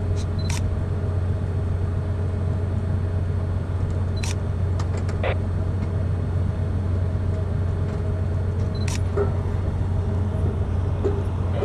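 Steady low hum of a ship's running machinery, with a few brief sharp clicks scattered through.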